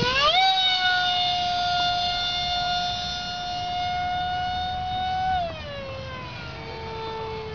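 Radio-controlled model jet's engine whining as it is throttled up: the pitch climbs steeply in the first half second, holds steady for about five seconds, then falls away as the throttle comes back.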